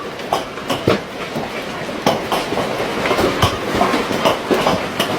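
Hailstones as big as chicken eggs coming down hard with rain: a steady hiss broken by frequent, irregular, sharp knocks as they strike.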